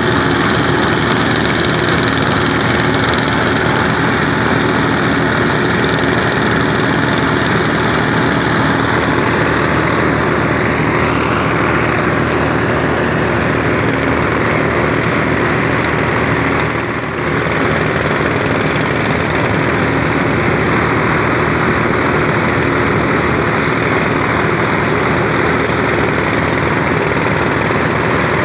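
A machine engine running steadily and loudly, with one brief dip a little after halfway through.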